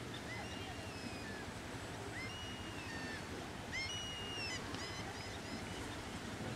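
Birds calling: a string of short, high calls that rise sharply and then level off or fall, over a steady low rumble.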